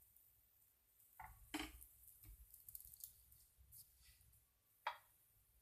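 A few short, soft knocks and clicks, about four in all, the sharpest one just before the end, from pav buns being handled and set down on a tawa. Between them there is only faint room tone.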